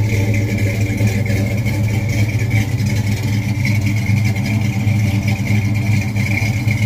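Classic car's engine idling steadily with a low, even rumble, heard close to the tailpipes at the rear bumper.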